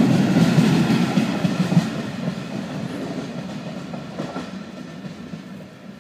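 Wheels of a freight train's bogie hopper wagons running past close by on the rails. The sound fades steadily over the next few seconds as the end of the train draws away.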